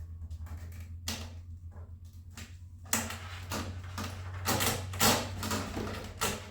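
Handling noises as an RC biplane's foam wing is fitted onto its spar and the servo lead connected: scattered scrapes and clicks, busier from about halfway through, over a steady low hum.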